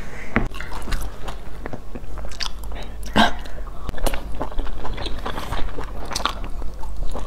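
A person biting into and chewing pan-fried Chinese chive pockets (jiucai hezi), with a run of short clicks and crackles from the mouth and one louder one about three seconds in.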